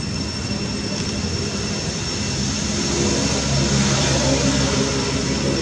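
An engine running steadily, growing louder about three seconds in, over a steady thin high-pitched tone.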